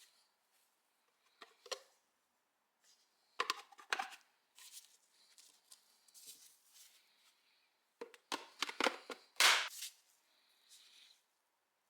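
Scattered clicks, clatter and short rustling scrapes of objects being handled, loudest in a cluster near the end; no motor running.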